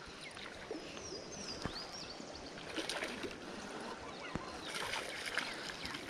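Shallow creek water running steadily over rocks, with a couple of small clicks and a few faint high chirps about a second in.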